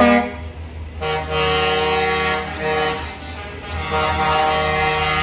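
Prime-mover air horns sounding: a short toot, then long steady blasts with a brief break in between, over the low running of the trucks' diesel engines.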